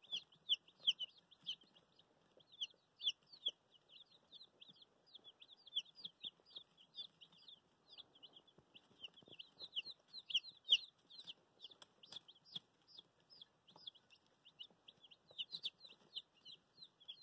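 A brood of two-day-old silkie chicks peeping without pause: many short, high, falling cheeps overlapping, several a second.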